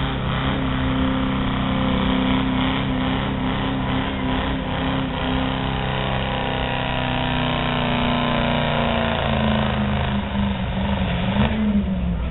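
Modified 1976 GMC pickup's engine running hard at high revs while it pulls a weight-transfer sled. The pitch stays steady, then wavers down and back up near the end.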